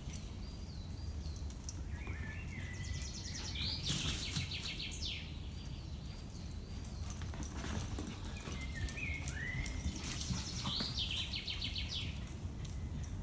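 A songbird singing two song phrases about five seconds apart, each a run of chirps and quick trills ending in falling notes, over a steady low rumble of outdoor background noise.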